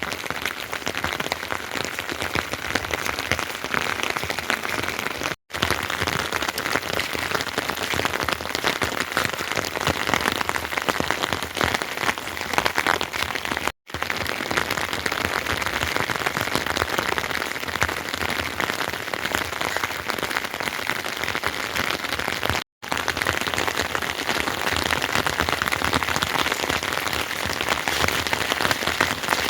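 Heavy rain falling steadily, a dense even hiss, cut off for an instant three times where clips are joined.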